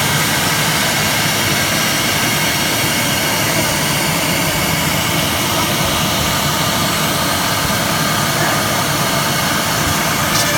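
1325 CNC wood router with three pneumatic spindles running: a steady machine noise with a high, even whine, unchanging throughout.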